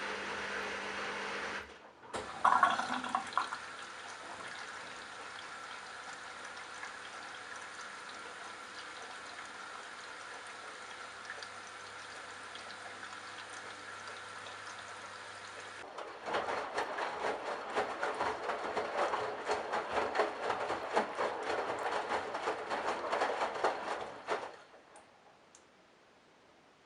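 Candy Bianca washing machine taking in water: a steady hum stops, then after a short gap the water inlet opens with a rush and runs as an even hiss over a low hum. About sixteen seconds in it turns to louder, irregular splashing and gurgling, which stops sharply near the end.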